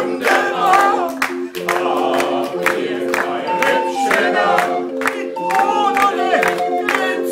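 Hand-cranked barrel organ playing a tune in steady held chords, with voices singing over it.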